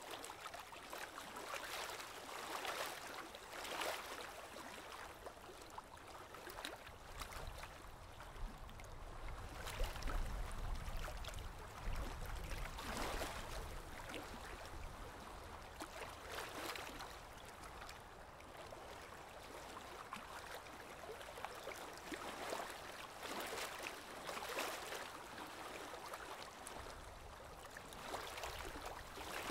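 Aquarium water gurgling and trickling as a steady hiss with irregular swells, with a low rumble for a few seconds around the middle.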